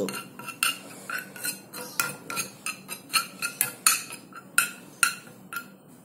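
Metal spoon stirring thick cooked chick-booster mash in a small saucepan, clicking against the pan about three times a second.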